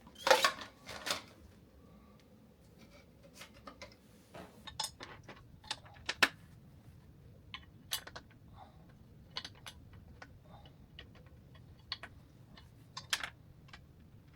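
Scattered clicks and light clinks of office chair parts and hardware being handled during assembly, with a short cluster of louder knocks in the first second and sharper single clicks about six and thirteen seconds in.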